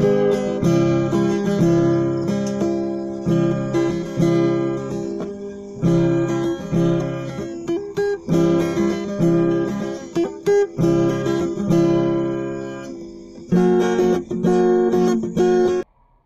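Background music: strummed acoustic guitar chords in a steady rhythm. It starts abruptly and cuts off suddenly shortly before the end.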